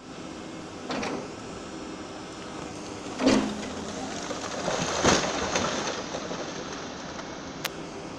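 Case hydraulic excavator demolishing a masonry building: steady machine noise with crashes and clatter as the bucket breaks walls and rubble falls. The loudest crash comes about three seconds in, another about five seconds in.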